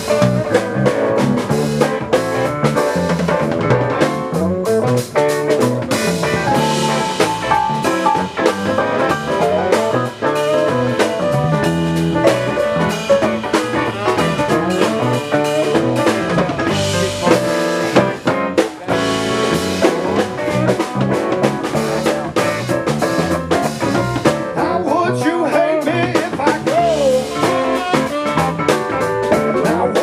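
A band playing a song, with a drum kit hitting throughout over guitar and other pitched instruments.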